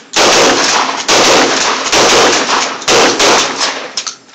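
Several loud shotgun blasts from two shooters firing together, new shots about a second apart, each ringing out before the next, with smaller pops near the end.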